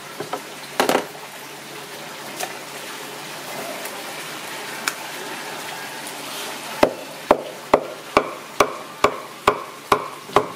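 Roast pork being chopped with a knife on a wooden chopping block. A few loose knocks and handling of the meat come first, then a steady run of about nine chops, roughly two a second, starts about two-thirds of the way through.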